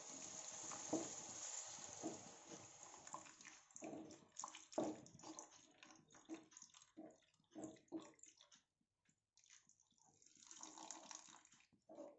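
Faint wet sloshing and scraping of a flat spatula stirring tamarind pulp into pineapple pickle in a non-stick kadai, as many short separate splashes. A steady hiss runs under the first few seconds.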